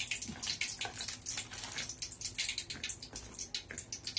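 A hand stirring and rubbing a dry flour mix of maida and cornflour in a steel bowl: a continuous dry rustling and scraping made of quick repeated strokes.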